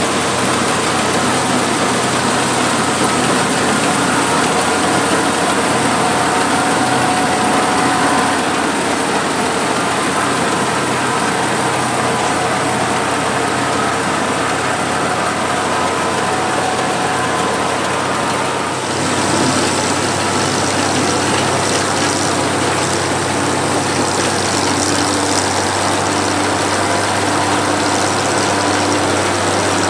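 Oliver 430 combine's engine and threshing machinery running steadily while harvesting wheat. About two-thirds of the way through the sound shifts abruptly to a steadier low engine hum.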